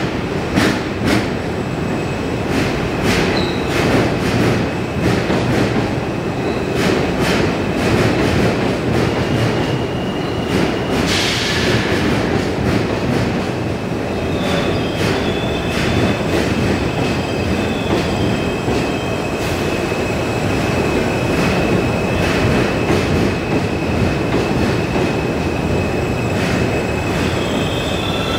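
NYC Subway R160B train pulling into a station and slowing to a stop: a steady rumble of wheels on rail, with frequent clicks over rail joints in the first half. A thin, high wheel squeal holds through the middle as it slows, and a short hiss comes about eleven seconds in.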